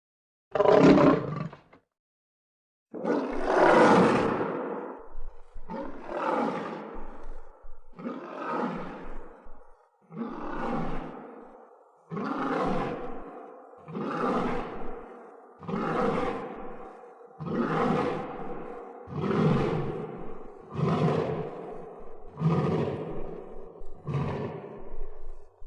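Lion roaring: one short roar, a pause of about a second, then one long roar followed by a steady series of about eleven shorter roars, roughly one every second and a half.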